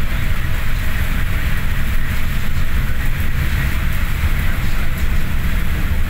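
Steady low engine and road rumble inside a bus cabin driving on a wet road, with an even hiss of heavy rain and tyre spray.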